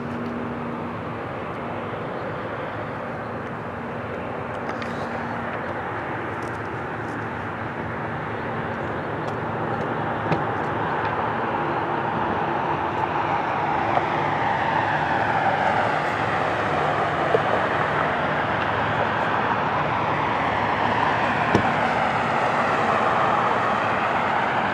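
Jet airliner's engines: a rushing noise that grows steadily louder, with a sweeping, phasing whoosh over the second half as the aircraft passes.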